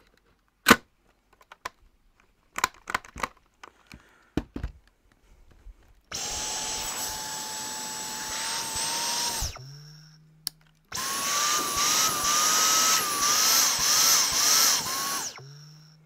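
Hard plastic clicks and knocks from handling, then a Dyson V10 Animal cordless vacuum's motor is switched on with a high whine for about three seconds and winds down. After a short pause it runs again for about four seconds, its pitch repeatedly dipping and recovering.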